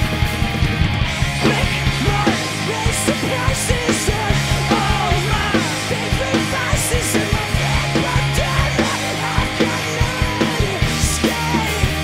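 Rock band playing live: drum kit keeping a steady beat with several cymbal crashes, over electric guitar and bass guitar.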